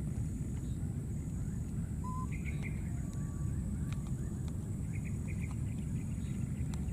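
Steady low outdoor rumble with a few faint short chirps, about two seconds in and again near five and a half seconds.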